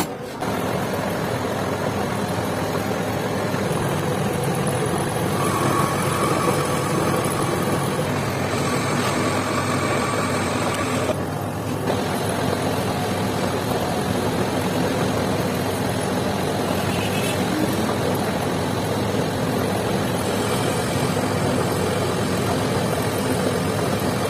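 Metal lathe running with a steady mechanical drone, which drops briefly about eleven seconds in.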